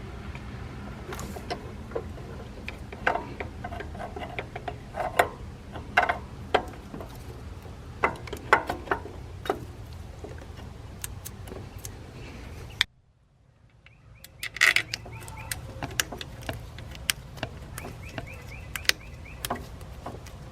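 Scattered metallic clicks, taps and clinks of the water pump and its 10 mm bolts being handled and threaded in, over a steady low hum. The sound cuts out for about a second around two-thirds of the way through.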